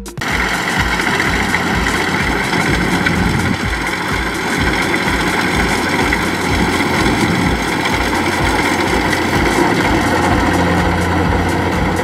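Kubota DC70 rice combine harvester at work, its diesel engine and threshing machinery running steadily under load with a low, even pulsing beneath.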